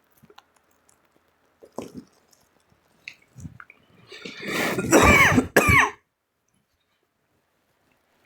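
A person coughing hard from bong smoke: a rising rasp of breath, then two loud harsh coughs about five seconds in. A few faint clicks and light knocks come before.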